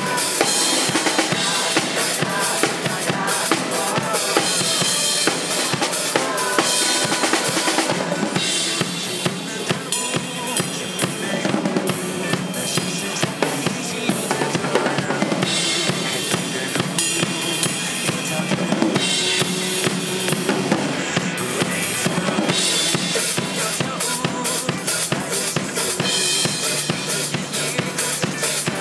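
Acoustic drum kit played live to a pop-rock backing track: continuous kick, snare and cymbal hits in a steady beat over the recorded song.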